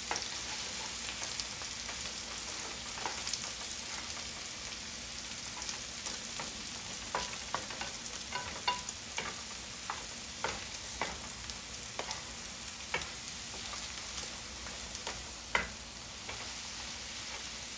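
Scrambled eggs with diced tomato and avocado sizzling in hot oil in a nonstick frying pan. A slotted wooden spatula stirs them, making repeated irregular scrapes and knocks against the pan.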